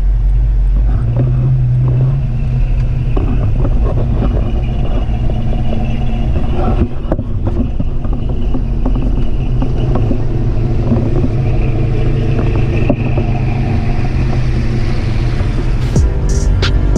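A classic muscle car's engine rumbling low and steady as it pulls away and drives alongside in traffic, swelling briefly about a second or two in.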